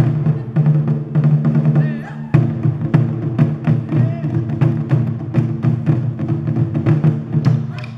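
Japanese taiko drums, barrel-shaped chu-daiko, played by an ensemble with wooden bachi sticks: a dense, driving run of booming strikes.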